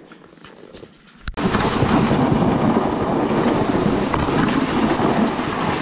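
A plastic sled being towed over a packed snow trail, its bottom scraping across the snow in a loud, steady rushing noise heard through the sled itself. The noise starts abruptly about a second in.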